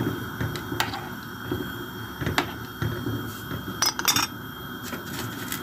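Metal ladle stirring noodles in broth in an aluminium pot, knocking against the pot a few times, with a quick cluster of clinks about four seconds in.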